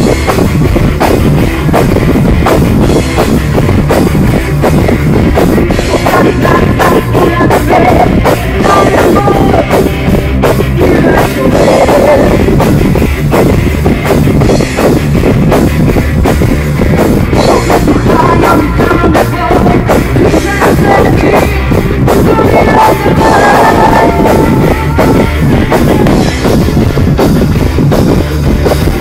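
Rock band playing live and loud, with electric guitars, bass guitar and a drum kit, recorded through a mobile phone's microphone.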